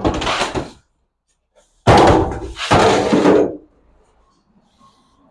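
Aluminium loading ramps being lifted and stowed on the van's floor: a loud clatter at the start, then two longer metal clanks with scraping about two seconds in.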